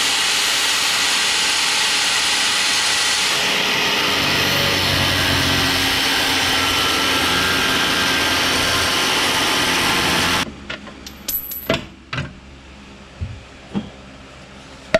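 Corded angle grinder cutting through a steel cam bolt on a rear lower control arm, running steadily under load. The bolt is being cut because it cannot slide out past the rear drive module. The grinder cuts off suddenly about ten and a half seconds in, followed by a few sharp knocks.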